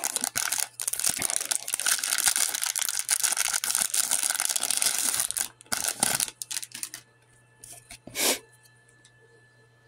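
Wrapper of a trading-card pack being torn open and crinkled in the hands. The dense crackling stops about seven seconds in, and one short rustle follows about a second later.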